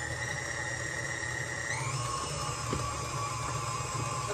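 Electric stand mixer running, mixing flour into banana muffin batter: a steady motor hum and whine that steps up in pitch about two seconds in, as the speed is turned up.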